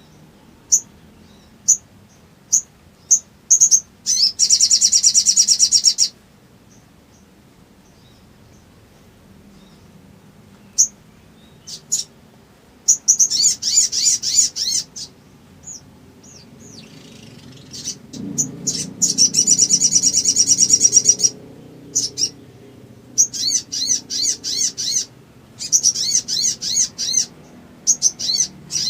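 Little spiderhunter (sogon) calling: sharp, high single chip notes spaced about half a second apart, then several long bouts of very rapid, rattling chip trills with short pauses between them.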